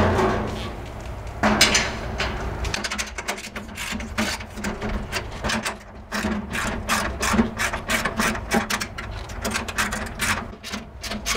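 Network cable being pulled by hand through a metal server cabinet: a fast, irregular run of rubbing clicks and scrapes starting about a second and a half in.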